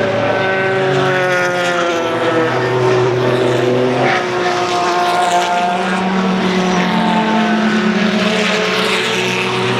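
Race car engines running at high revs, their pitch gliding as the notes change, with a new set of engine notes taking over about four seconds in.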